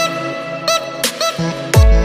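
Electronic intro jingle with short glitchy stutter effects over held synth tones, and a deep falling bass drop near the end.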